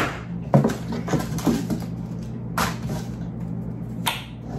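Corelle glass plates handled in and out of their cardboard box: a handful of light, irregular clacks and knocks, with a steady low hum underneath.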